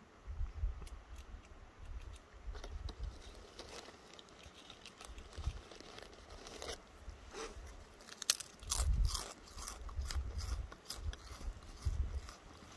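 Golden-mantled ground squirrel nibbling a potato chip: quick, dry little crunches, thickest and loudest about two thirds of the way in, over a low rumble.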